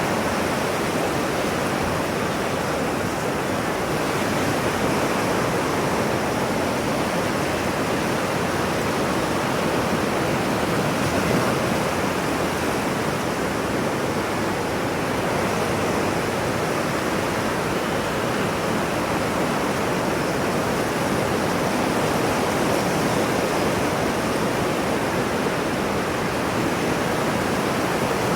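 Ocean wave sound: a steady, even rush of surf with no distinct wave breaks or swells.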